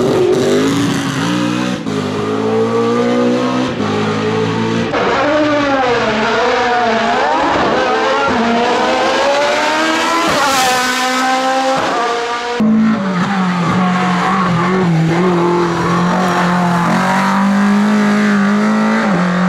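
Racing car engines at full throttle, several cars in turn with abrupt cuts between them: revs rising and falling through gear changes. Near the middle a high-revving engine climbs sharply in pitch, then a deeper engine holds a steadier note for the last third.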